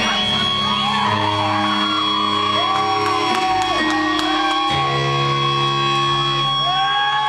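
A rock band playing live and loud: long held guitar notes over bass notes that change every second or two, with shouts over the music.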